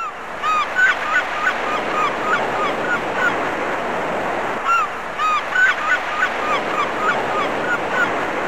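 A flock of birds calling over one another: many short calls that bend up and down in pitch over a dense, steady din. The sound cuts in and out abruptly.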